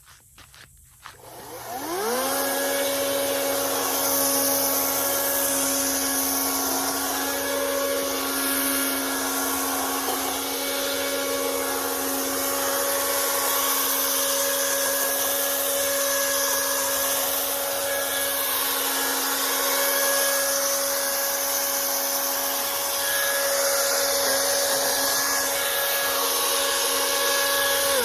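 Battery-powered Toro chainsaw spinning up with a rising whine about two seconds in, then running steadily at full speed with a high motor whine and slight wavers in pitch. It winds down right at the end.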